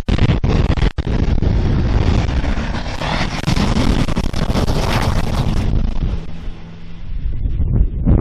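Turbo-diesel truck engine running hard at full throttle, loud and rough, with wind buffeting the microphone. The noise eases for a moment about six seconds in, then rises again near the end.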